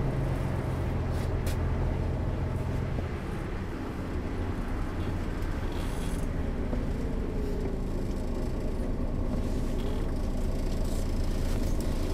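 2008 Setra S 415 NF city bus's diesel engine idling steadily while the bus stands still, a low even hum that eases off slightly a few seconds in.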